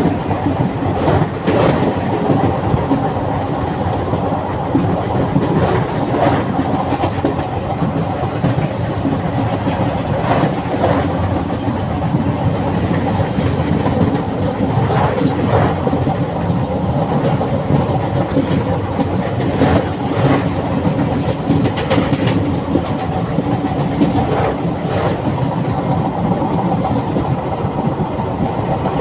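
Passenger train running steadily on the track, a continuous rumble of wheels on rail with a sharp clack every few seconds as the wheels pass over rail joints.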